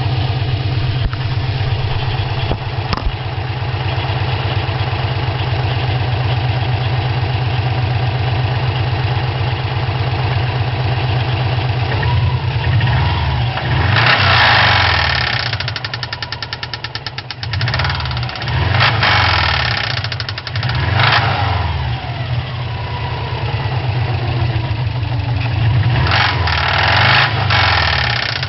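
2004 Subaru Impreza WRX turbocharged flat-four engine idling steadily, then revved in several short blips from about halfway on. It carries an engine knock that the owner is recording.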